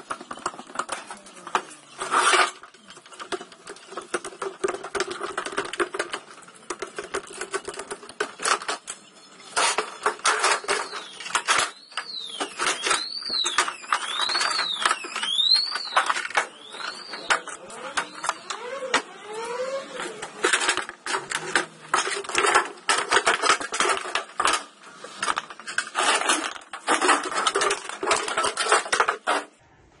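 Metal clanking, knocking and scraping as an old washing machine is pried and unbolted apart with hand tools. A run of repeated high squeaks comes about twelve seconds in.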